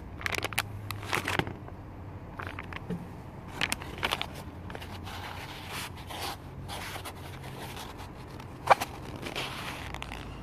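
A white clamshell to-go box with a plastic bag inside being handled and pressed by hand: irregular crinkling, crackling and scraping, with one sharp click near the end.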